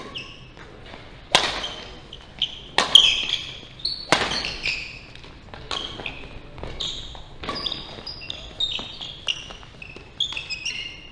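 Badminton rally: rackets smack the shuttlecock sharply about once a second, loudest in the first four seconds. Between the shots, sneakers squeak briefly on the court floor.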